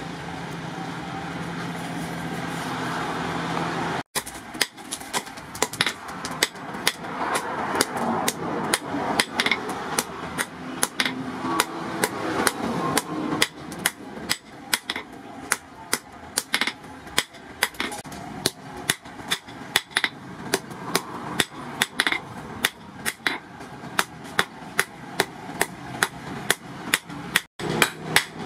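Two smiths striking a red-hot steel blade, cut from a motorcycle brake rotor, in turn with sledgehammers on a post anvil: a long run of sharp metallic blows, about two a second. Before the hammering starts a few seconds in, a steady whir from the forge's electric blower.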